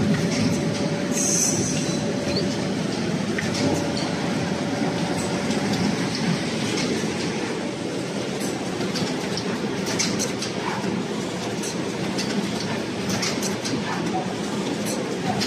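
Automatic rigid box making machine running: a steady mechanical clatter with many scattered clicks and ticks from its moving parts. There is a short hiss about a second in, and a thin steady tone over the first few seconds.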